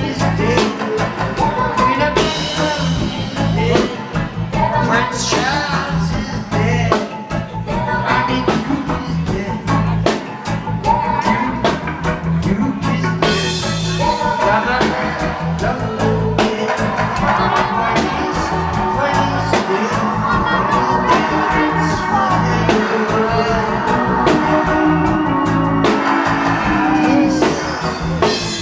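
Live reggae band playing through a club PA, with a heavy repeating bass line and a drum kit, while a man sings into a handheld microphone over it.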